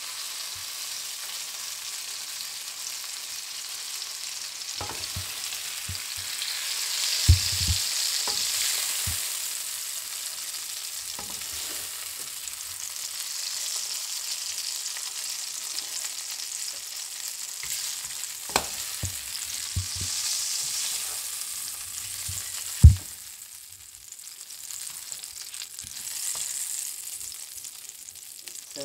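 Red pepper strips sizzling in hot oil in a frying pan while they are scooped out with a mesh spider strainer, with a few sharp knocks along the way. The sizzle gets quieter after a loud knock about 23 seconds in.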